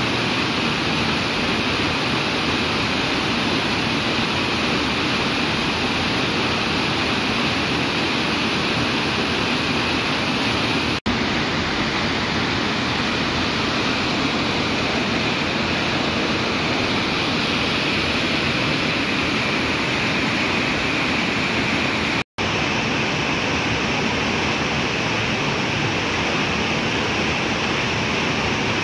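Waterfall rushing steadily: whitewater pouring down rock steps of the river cascade. Two momentary dropouts in the sound, about 11 s and 22 s in.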